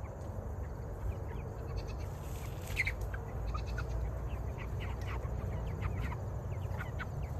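Young meat chickens peeping: scattered short, high calls, thickest in the second half, over a steady low rumble.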